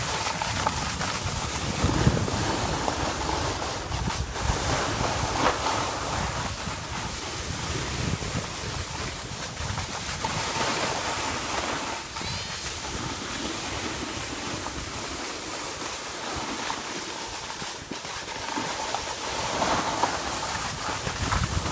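Wind buffeting the microphone from downhill speed, with the rushing hiss of edges sliding over packed snow.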